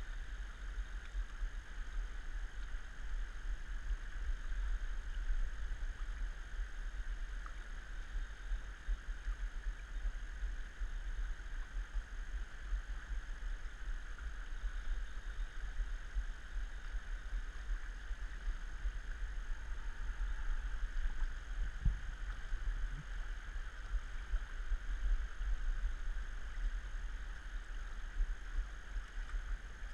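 Steady rush of a fast river's current picked up by a GoPro camera's microphone, under a heavy low rumble and a faint high steady whine, with one soft knock a little past two-thirds of the way through.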